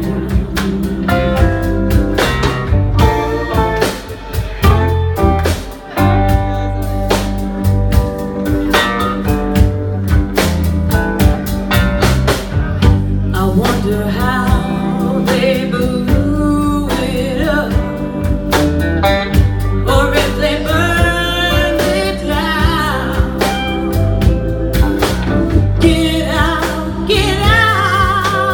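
Live rock band playing: a woman sings lead over electric bass, drum kit and guitar.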